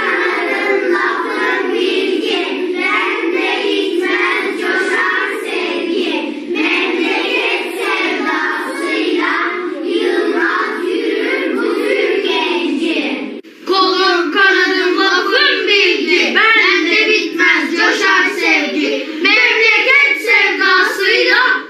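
A group of children singing together. The singing breaks off abruptly about 13 seconds in, and another group of children carries on singing.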